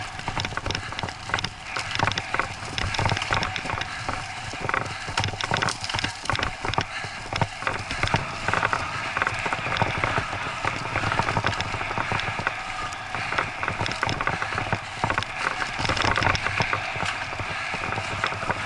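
Bicycle rolling fast over a bumpy grass and dirt trail: continuous tyre and rolling noise with many irregular rattles and knocks from the bike jolting over the ground.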